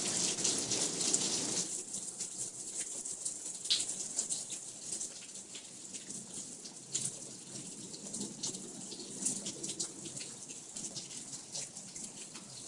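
Rain falling, a steady hiss with many separate drops ticking, heavier for the first second or two.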